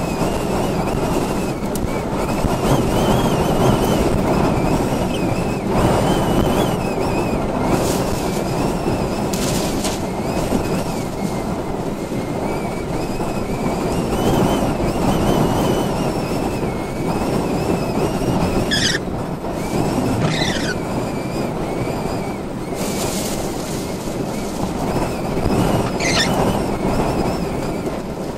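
Storm-force wind blowing hard in gusts, with a wavering high whistle and wind buffeting the microphone. Three short, high, falling squeals come in the second half.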